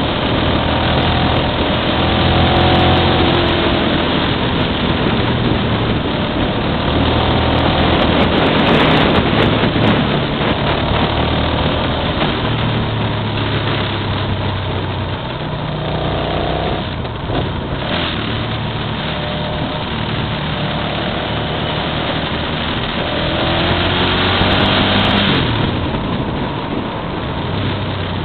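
Motorcycle engine heard from on board, its note rising and falling with the throttle, over a steady rush of wind on the microphone. The engine climbs in pitch four times, about two, eight, sixteen and twenty-four seconds in.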